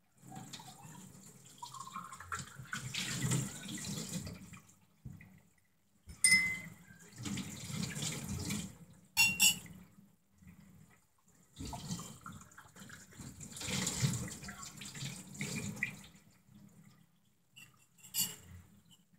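Water running from a kitchen tap into a stainless steel sink as glasses and a cup are rinsed under the stream, the splashing coming and going in three spells with short lulls between. A couple of sharp clinks stand out, one near the middle and one near the end.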